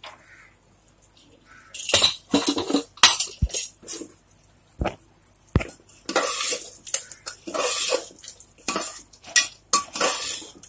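A metal spoon scraping and clinking against a pressure cooker pot, stirring the cooked keema. It comes as irregular scrapes and knocks starting about two seconds in.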